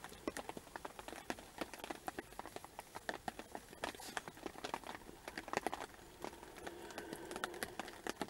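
Rain falling, with many irregular sharp taps of drops landing close to the microphone over a faint steady hiss.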